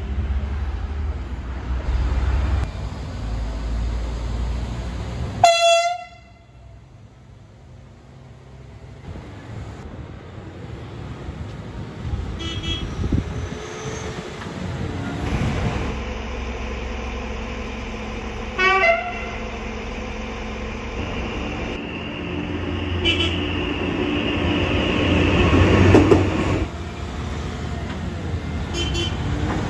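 A run of Danish trains sounding their horns, one after another. There is a short, loud air-horn (tyfon) toot from an Arriva Desiro about five seconds in, and another short tyfon toot from an Aarsleff Rail track machine near the middle. Steadier high-pitched electric horns follow later, with train running and rumbling noise between the horns.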